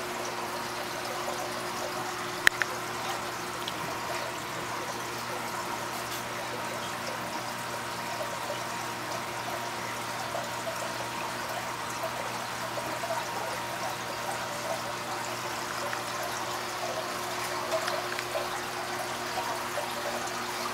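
Steady trickling and splashing of water circulating in a large home aquarium, over a steady low hum. There is a single sharp click about two and a half seconds in.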